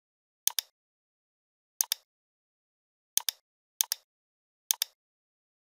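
Computer mouse clicks: five separate clicks, each a quick press-and-release double tick, with silence between them.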